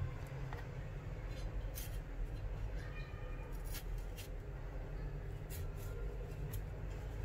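Kitchen knife slicing through a tomato and clicking on a wooden chopping board: several short sharp knocks, the loudest right at the start, over a steady low hum.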